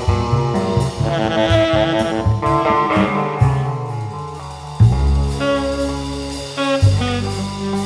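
Small-group jazz recording: tenor saxophone playing over a drum kit and bass, with busy drumming in the first half and long held low notes in the second.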